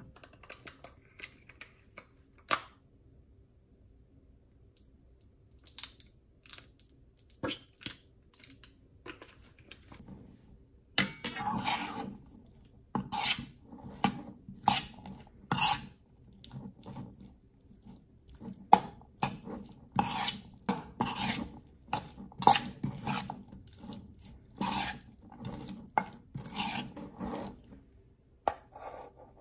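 Metal spoon clinking and scraping against a stainless steel mixing bowl while stirring food, in quick, irregular strokes that begin about ten seconds in. Before that there are only a few scattered light clicks and taps.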